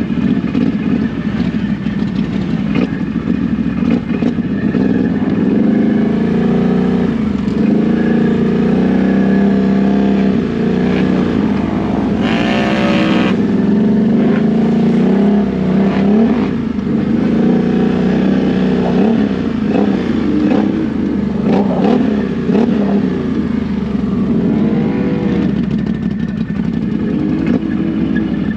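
ATV engine running and revving up and down, with a brief harsher, higher burst about twelve seconds in.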